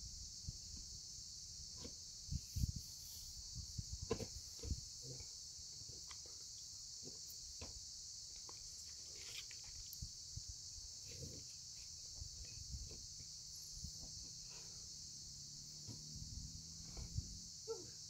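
Steady high-pitched insect chirring, with scattered faint knocks and taps, a cluster of them about two to five seconds in and again near the end.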